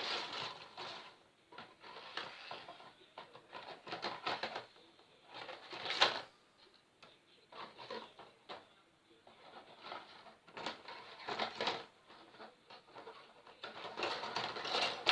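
Plastic model kit parts being handled: irregular rustling, scraping and light clicks, with one sharper click about six seconds in.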